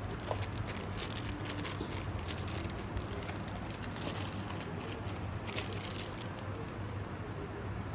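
Irregular rustling and crinkling, like plastic packaging and small parts being handled, over a steady low hum.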